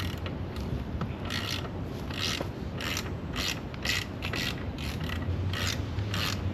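Ratchet wrench being cranked in a dozen or so short ratcheting strokes, about two a second.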